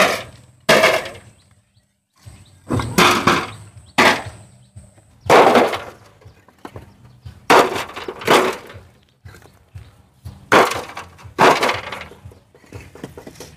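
Bricks clattering against one another as they are tossed down one after another: about a dozen sharp knocks, often in pairs, each with a short ringing decay.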